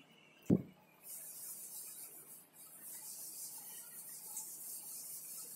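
A short knock about half a second in, then a whiteboard duster rubbing across the board as it is wiped clean: a steady, dry, high-pitched wiping hiss from about a second in.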